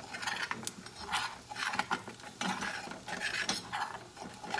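Spoon scraping and stirring a thick flour roux around the bottom of a stainless steel saucepan in repeated strokes, a couple a second, while the roux cooks to a light brown for gravy.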